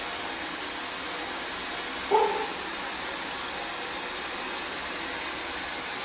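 Steady white noise hiss played as a test signal for measuring noise reduction, with a short, louder tone just after two seconds in.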